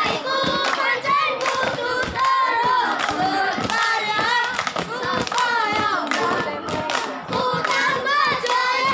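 A group of boys singing together in unison, with sharp hand claps punctuating the song.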